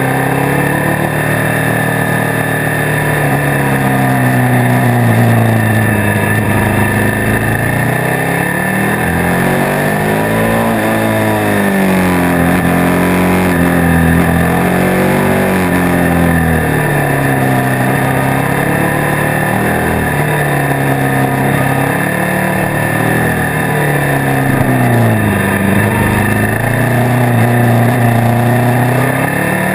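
Motorcycle engine heard from a camera mounted on the bike, its pitch rising and falling again and again as the rider accelerates and eases off through bends, over a steady rush of wind.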